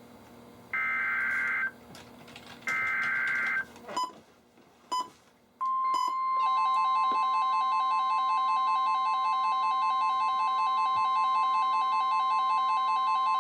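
NOAA Weather Radio SAME alert: the last two of the three one-second warbling data bursts of the digital header, a few clicks, then about five and a half seconds in the steady 1050 Hz warning alarm tone. A moment later a weather-radio receiver's own rapidly pulsing beep alarm joins it. The sequence signals a new warning broadcast, here a severe thunderstorm warning.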